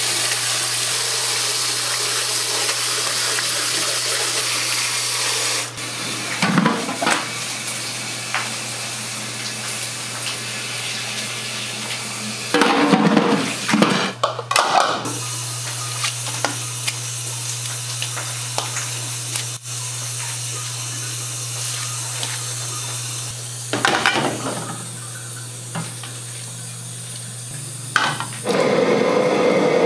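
Kitchen sounds from cooking jjamppong in a Chinese-restaurant kitchen: a steady hiss over a low, constant hum, broken several times by short bursts of splashing water and clatter. It grows louder near the end.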